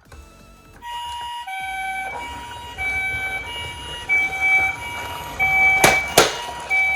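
Toy ambulance's electronic siren playing the Japanese ambulance two-tone call, a higher and a lower tone alternating about every two-thirds of a second, starting about a second in. Two sharp clicks near the end are the loudest sounds.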